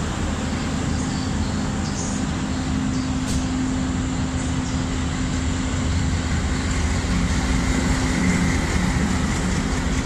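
WDP-3A diesel locomotive running light past at low speed, its engine a steady low drone with a constant hum, growing a little louder in the second half as it comes closer.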